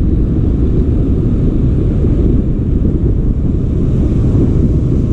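Wind buffeting the microphone of a camera on a moving bicycle: a loud, steady, low rumble.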